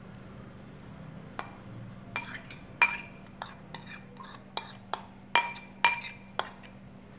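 A metal spoon knocking against a ceramic bowl as filling is scraped and tapped out of it: about a dozen sharp clinks, some ringing briefly, starting about a second and a half in.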